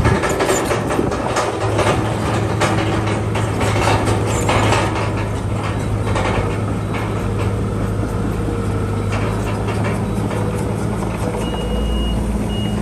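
Heavy diesel earthmoving machinery running steadily, with metallic clanking over the first few seconds; a high tone sounds twice near the end.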